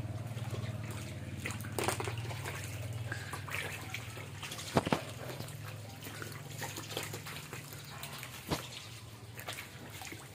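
Water trickling and splashing in a shallow tank crowded with frogs, over a steady low hum that stops near the end. A few short sharp splashes stand out, the loudest nearly halfway through.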